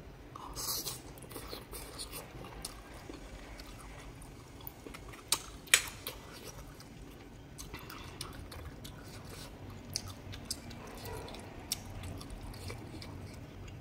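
Close-miked chewing and wet mouth noises of someone eating spicy noodles and chewy octopus, with scattered small clicks. Two sharp clicks, the loudest sounds, come about five seconds in.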